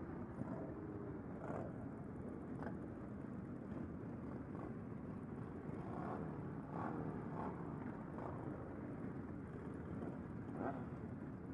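Many motorcycle engines running together at low revs, a steady rumble with a few engines briefly revving up and down.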